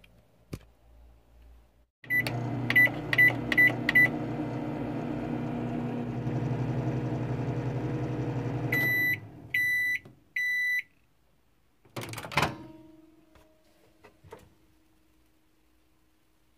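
Microwave oven being run: five quick keypad beeps as the time is set, the oven humming steadily while it cooks, and three longer beeps as the cycle ends. A sharp clunk follows a little later, the door being opened.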